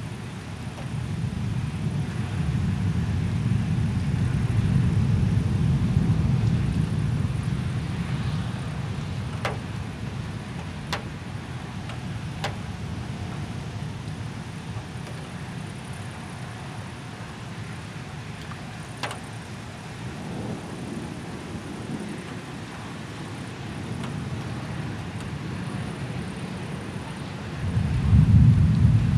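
Thunder from a severe thunderstorm: a deep rolling rumble that swells for several seconds and then dies away. A second loud, sudden crack of thunder comes near the end.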